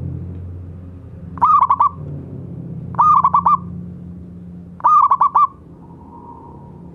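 Zebra dove (perkutut) calling: three short phrases of four or five quick, clipped coos each, a little under two seconds apart.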